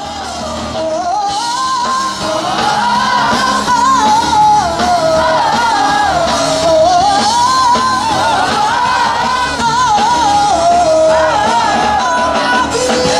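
Large choir singing a flowing melody that rises and falls, amplified through the stage sound system.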